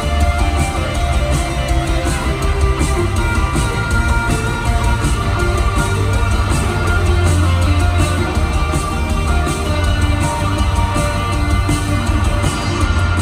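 Live rock band playing in an arena: electric guitars over a heavy bass and a steady drum beat.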